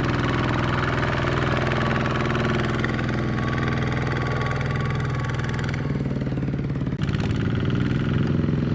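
Single-cylinder diesel engine of a Kubota two-wheel mini tractor running steadily. Its sound shifts abruptly about six seconds in, with a brief break about a second later.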